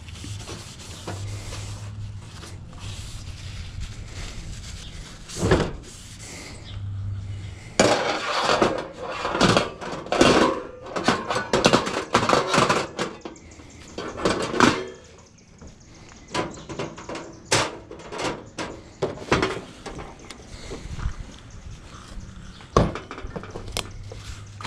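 Coleman two-burner propane camp stove being cleaned and handled: cloth rubbing on the metal, then a dense run of metal rattles and scrapes as the wire cooking grate is set back on, followed by scattered sharp clicks.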